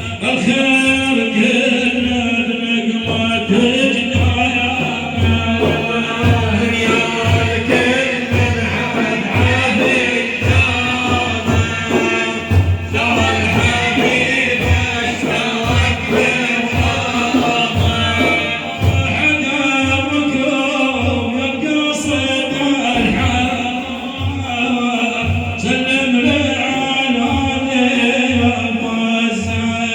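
Male voices singing a devotional madeeh in praise of the Prophet, a lead singer with a chorus, over a steady drum beat.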